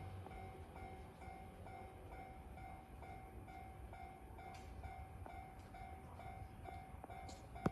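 Japanese railroad-crossing alarm ringing, a faint electronic ding repeated at an even, steady pace, over a low rumble. A single sharp click sounds near the end.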